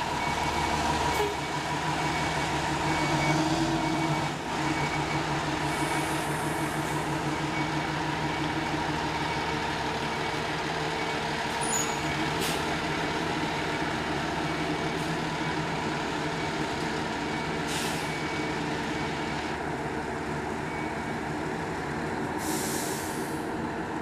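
Fire ladder truck backing into its station bay: the diesel engine runs at idle while its reversing beeper sounds in an even, repeating pattern, stopping about twenty seconds in. Near the end comes a short burst of air hiss from the brakes.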